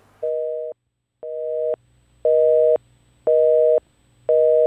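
Telephone busy signal: five half-second beeps of a steady two-note tone, one a second. The first two are a little quieter than the rest.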